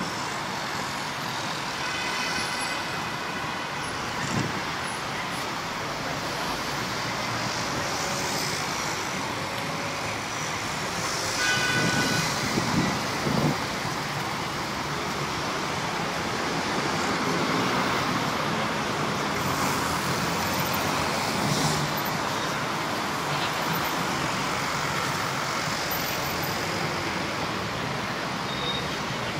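Steady road traffic noise heard from the open upper deck of a moving tour bus. It swells briefly about twelve seconds in, and short higher tones come through about two seconds in and again around twelve seconds.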